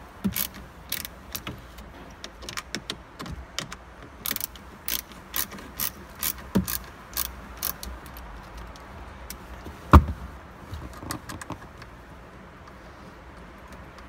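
Hand ratchet with a 5 mm Allen bit clicking in quick, uneven strokes as it backs out the steering-wheel airbag screws. There is one sharp knock about ten seconds in, a few more clicks, and then it goes quieter near the end.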